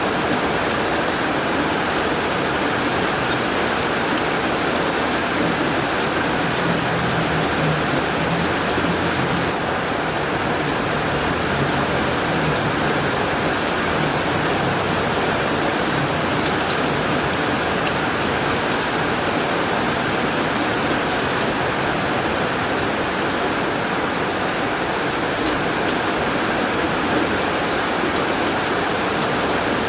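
Heavy rain pouring steadily onto a tin roof, a dense even patter, with a low rumble of thunder about six seconds in that fades by about ten seconds.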